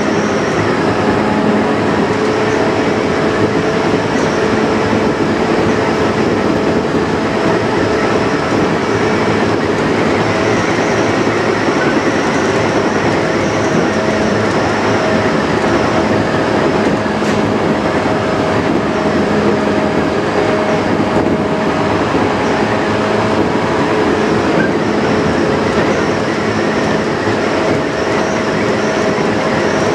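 Tokyu 8500 series electric train running at a steady speed, heard from its motored front car: an even hum and whine from the traction motors and gears, held at a nearly constant pitch, over the rumble of wheels on rail.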